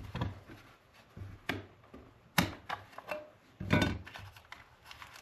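A product box and its packaging handled and rummaged through: four or five short knocks, the sharpest about halfway through and another near the end, with rubbing and scraping between.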